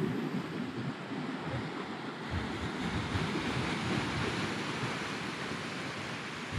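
Sea surf breaking and washing over rocks below a cliff, a steady rushing, with wind buffeting the microphone.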